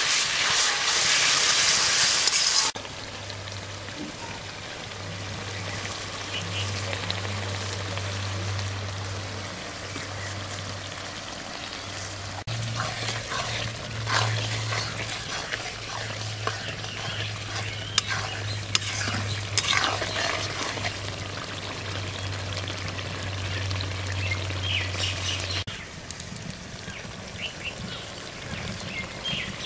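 Chicken gizzards in spiced masala sizzling in an aluminium kadai while a metal spatula stirs and scrapes the pan, as they are slow-fried dry (kosha). The sizzle is loud for the first couple of seconds, then quieter, with scattered spatula scrapes and a low steady hum.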